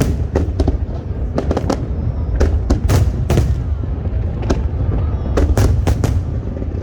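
Fireworks display: a rapid, irregular string of sharp bangs and crackles over a continuous low rumble.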